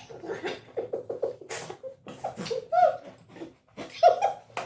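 A woman laughing in quick breathy bursts, a rapid run of short pulses at first and then scattered giggles with a few rising squeals.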